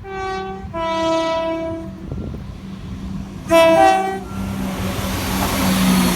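Scotrail Class 170 Turbostar diesel multiple unit sounding a four-tone on its horn: two notes in the first two seconds, then a louder, shorter pair about a second and a half later. The train's running noise then rises as it comes through.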